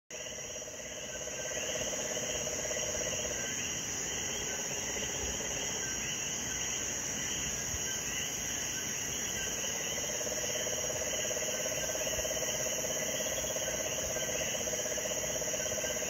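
Puerto Rican sapo concho toad calling in a long, low, pulsing trill that stops about three seconds in and starts again about ten seconds in, over a steady high-pitched chorus of insects.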